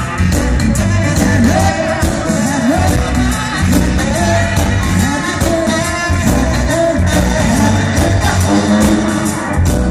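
Live reggae band playing loud: a saxophone melody over bass and drums, with singing.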